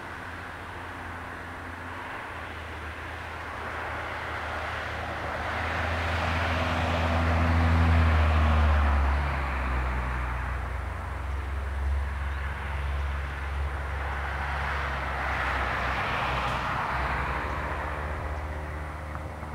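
A motor vehicle's low, steady engine drone, with a rush of noise that swells and fades, loudest about eight seconds in and again near the end.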